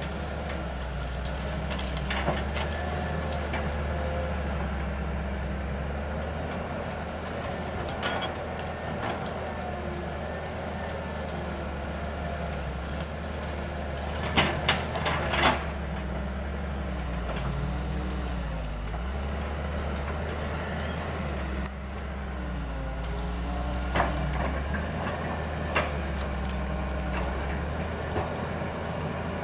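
Excavator's diesel engine running steadily, with wavering pitch changes as the machine works and a few sharp knocks, a cluster about halfway and two more near the end.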